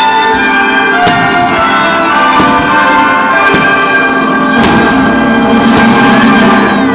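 Loud show music for a fireworks display, with aerial firework shells bursting about once a second over it.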